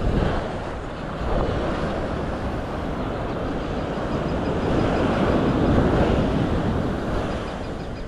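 Ocean surf breaking and washing up a sandy beach, with wind rumbling on the microphone. The rush swells to its loudest about five to six seconds in.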